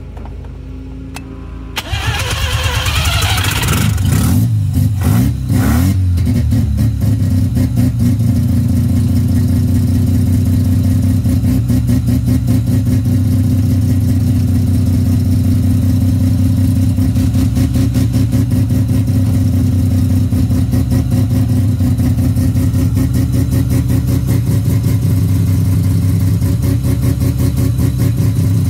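Full-bridgeport Mazda 12A rotary engine on a Holley 650 carburettor, still on the carb's stock air bleeds, starting about two seconds in. Its revs rise and fall for a few seconds, then it settles into a steady, evenly pulsing idle.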